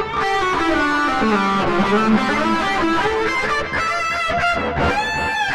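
Electric guitar playing a distorted solo lead line through a Korg AX3000G modeling processor, with its analog delay set to a feedback of 6.0. The phrase steps down through a run of notes, climbs again, and settles on a held note with slight vibrato near the end.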